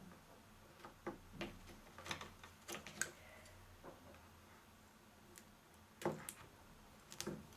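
Scattered light clicks and taps from handling a roll of red double-sided foam mounting tape and scissors on a tabletop while small pieces are cut and peeled.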